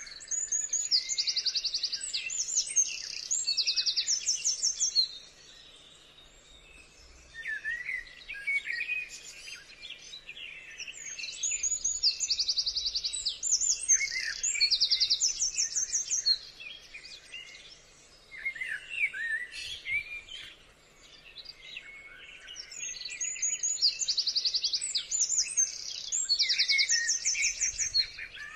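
High chirping calls with quick upward sweeps and rapid trills, coming in three long, closely similar phrases separated by short quiet gaps.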